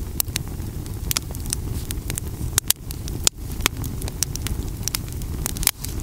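Wood campfire of split logs burning, crackling with frequent irregular sharp pops over a steady low rumble.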